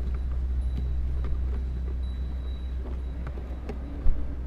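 Steady low rumble with a few faint knocks from an oil bottle being handled, and one sharp thump about four seconds in.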